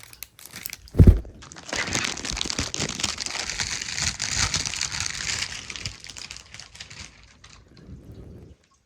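Plastic packaging crinkling and rustling for several seconds as a keyboard is unwrapped, fading toward the end. There is a single loud thump about a second in.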